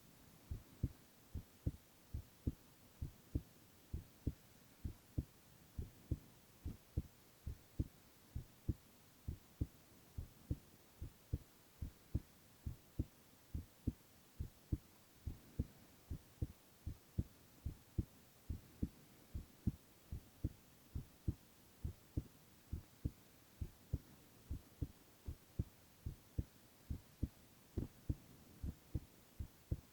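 Human heartbeat: steady, regular lub-dub pairs of low thumps, a little faster than one beat a second, over a faint hiss.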